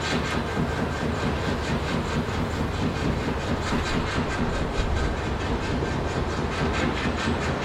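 Heavy industrial machinery running steadily, a low rumble with a rapid, even clatter of about five or six knocks a second.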